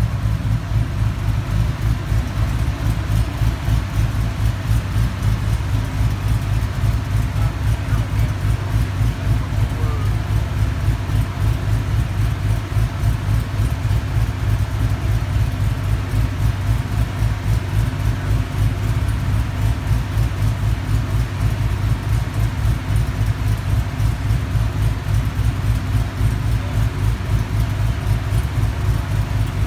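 LS1 V8 engine of a 2001 Camaro Z28, with CNC-ported heads, a COMP hydraulic roller cam, Hooker headers and dual exhaust, idling steadily through the exhaust with a deep rumble and a regular pulse.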